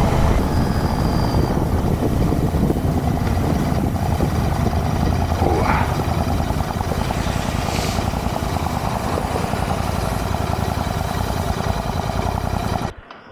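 Royal Enfield Continental GT 650's 648 cc parallel-twin engine running steadily under way, under a steady rush of wind and road noise. The sound cuts off suddenly near the end.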